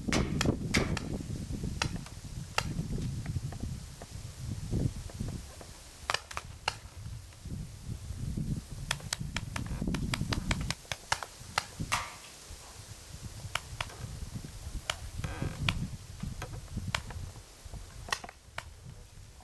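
Paintball markers firing: sharp pops heard singly and in quick strings of several shots, over a low rumble of wind or handling on the camera microphone.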